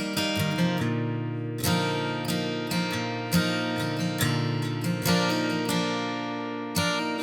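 Background music: acoustic guitar playing plucked and strummed chords, a new chord struck every second or so and left to ring.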